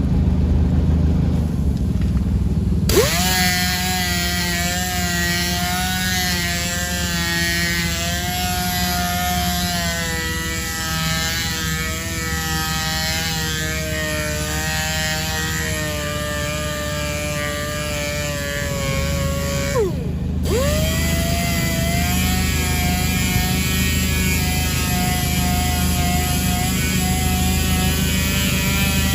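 Power sander running on an alloy wheel: its whine rises as it spins up about three seconds in, then wavers in pitch as it is worked across the surface. Around twenty seconds in it winds down and immediately spins back up. A steady low hum runs underneath.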